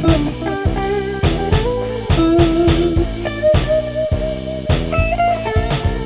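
Blues-tinged psychedelic rock instrumental passage: a guitar plays a lead line of held, bending notes over a steady drum beat.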